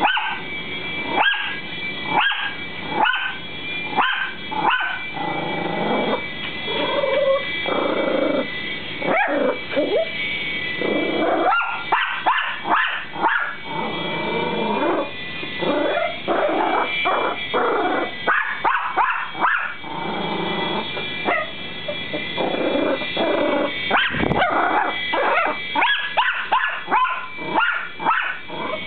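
Dogs barking excitedly at a flying Air Hogs toy helicopter: sharp barks about one and a half a second at the start and again near the end, longer wavering calls in the middle. A steady high whine, which fits the toy helicopter's rotor motor, runs underneath.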